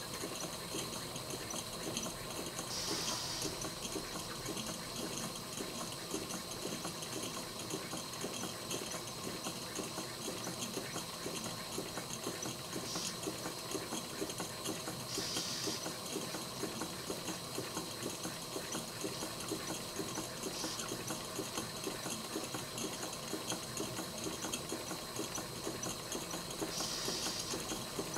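Three small Cotswold Heritage model steam engines, including an Ariel and a Perseus, running unloaded on steam from a small gas-fired boiler: a fast, steady mechanical clatter over a continuous steam hiss. A few short, louder hisses break in now and then.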